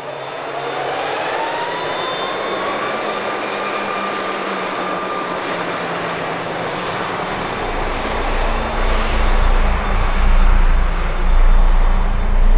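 Boeing 737 MAX's CFM LEAP-1B turbofan engines spooling up for takeoff. A whine rises in pitch over the first few seconds and then holds over a steady roar. From about halfway a deep rumble builds and the sound grows louder as the airliner accelerates down the runway.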